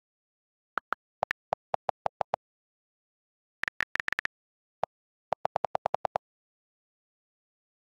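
iPhone on-screen keyboard clicks as keys are tapped: quick runs of short ticks in groups, some higher-pitched and some lower. Near the end comes a fast run of about ten lower clicks, as the text is deleted.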